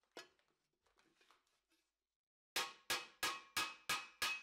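Hammer striking a steel helmet plate held on a stake anvil. After a few faint clinks, a steady run of ringing blows starts a little past halfway, about three a second.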